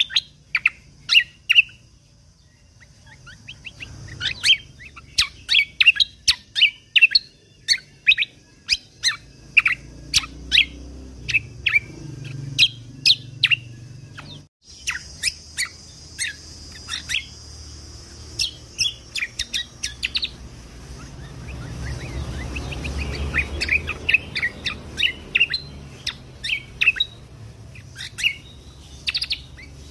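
Cucak kombo (kecial kombok) songbird singing: a long string of sharp, rapid chirping notes, the fast 'shooting' phrases used as training song for competition birds. The recording drops out for an instant about halfway through.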